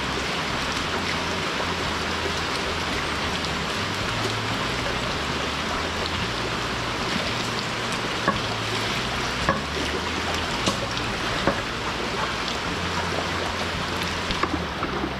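Steady rain falling on wet ground and a concrete slab, an even hiss. A few sharp knocks from about halfway through, bunching near the end, as bamboo shoots and a plastic bucket are handled.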